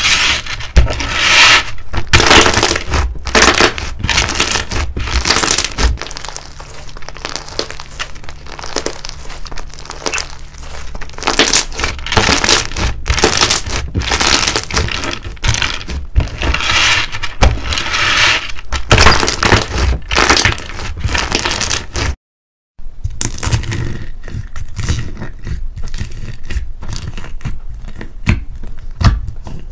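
Hands squeezing, pressing and poking thick white slime: a dense run of sticky crackling and squishing, with a brief break of silence about three-quarters of the way in.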